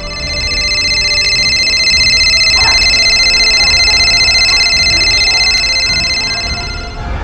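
Steady, high-pitched ringing tone of several pitches at once, a soundtrack effect. It swells in over the first second, holds level, and fades away near the end.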